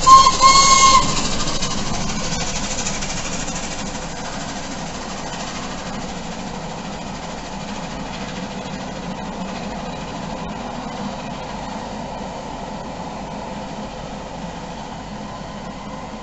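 Whistle of the steam locomotive 60163 Tornado, a single pitched blast of about a second right at the start and the loudest sound. It is followed by the steady rumble of the passing train's carriages on the rails, slowly fading.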